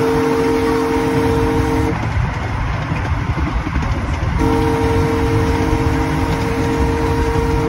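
Small tourist train's horn sounding a chord twice: one blast ending about two seconds in, a second starting about four and a half seconds in and still held at the end. Under it runs the low, steady rumble of the moving train.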